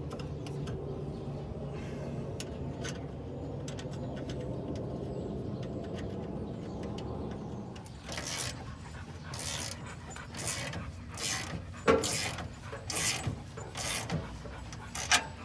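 A steady low hum for about the first half, which stops suddenly. Then a ratchet and 14mm socket clicks in irregular strokes, tightening a 2-inch band clamp on an exhaust flex tube.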